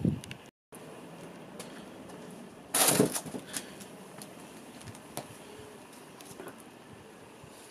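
Handling noise from a folded electric scooter: one brief loud clatter about three seconds in, then a few faint clicks.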